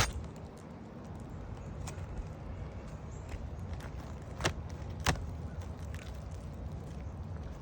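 A sharp click at the start and two more about four and five seconds in, over a steady low rumble: a roof snake prying at the roofing nails under asphalt shingles.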